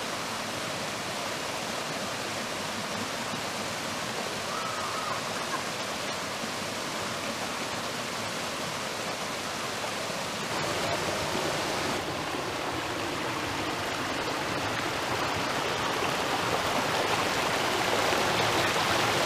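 Small waterfall spilling over stepped rock ledges into a creek: steady rushing, splashing water, getting louder near the end as the microphone comes close to the falling water.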